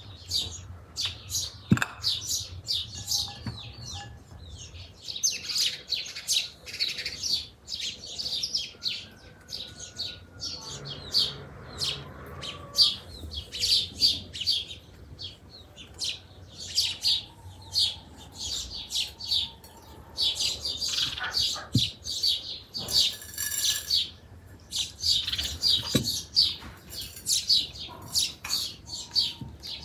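Small songbirds chirping busily, many quick, high calls overlapping without a break, with a few light knocks here and there.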